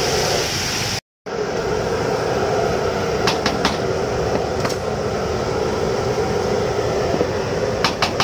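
Large woks of oil bubbling over gas burners, with a steady sizzle and burner noise. A brief dropout comes about a second in, and a few sharp metal clinks of a wire strainer on the wok rims follow later.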